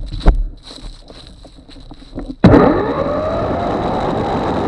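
A knock, then the EGO Power+ PH1400E multi-tool power head's electric motor is triggered about halfway through and spins up quickly with a rising whine, then runs steady at full speed.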